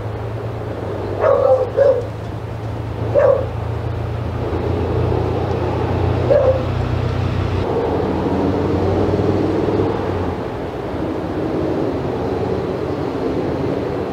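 A dog barking: four short barks spread over the first seven seconds or so, over a steady low hum that fades out after about eight seconds.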